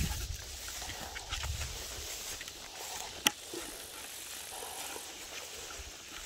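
Footsteps through tall grass and weeds, with stems rustling and brushing against the legs, and a single sharp click about three seconds in.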